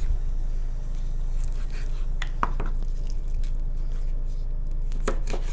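Knife cutting a raw chicken apart at the leg joint, with a few faint clicks and taps of the blade about two seconds in and again near the end, over a steady low hum.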